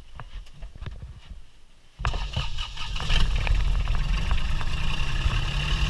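Longtail boat engine starting abruptly about two seconds in, after a few light knocks, then running steadily and getting louder a second later.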